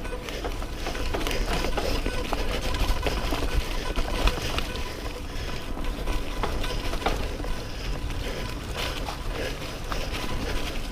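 Mountain bike rolling over a rough dirt trail: frequent rattles and knocks from the bike over a steady low rumble.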